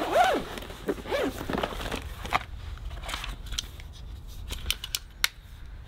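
Product packaging being handled and opened: crinkling and rustling with scattered sharp clicks and taps, most of them in the second half.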